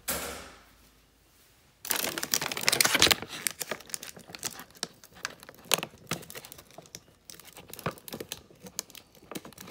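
Plastic bag of dog treats crinkling as it is handled and rummaged through: a dense burst of crackling from about two seconds in, then scattered crinkles.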